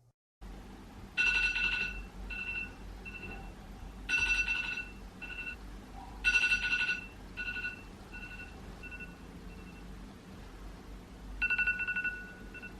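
Phone alarm ringing: a high electronic tone sounds in several groups, each a longer beep followed by shorter, fading repeats.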